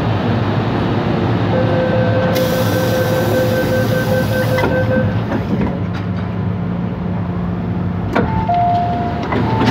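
Metro-Cammell M-Train electric multiple unit running past a platform at close range: a steady rumble of wheels on rail, with a held whine from about one and a half to five seconds in and a brief hiss in the middle. A sharp click comes near the end.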